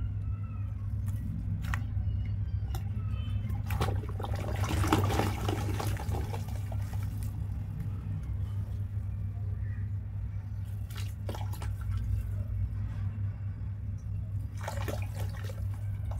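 Dry charcoal-cement chunks dropped and crumbled by hand into a plastic bucket of water, splashing and plopping. The biggest burst of splashing comes about four to six seconds in, with shorter splashes near eleven and fifteen seconds, over a steady low hum.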